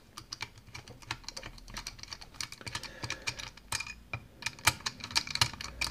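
Screwdriver prying and scraping at the black cap on a Burg Wächter Alpha Titan 900 padlock, giving a busy run of small irregular clicks and ticks.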